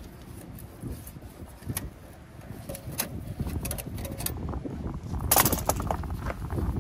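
Scattered light metallic clinks and knocks over a steady low rumble, with a louder rattle about five seconds in.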